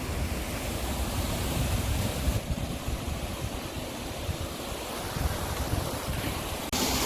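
Water rushing into a canal lock through its paddles as the lock fills, a steady noisy rush with wind buffeting the microphone.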